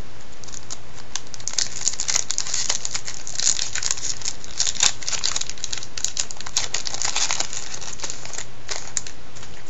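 Foil wrapper of a 2002 Topps Total baseball card pack being torn open and crinkled by hand: a dense run of sharp crackles, with a last few near the end.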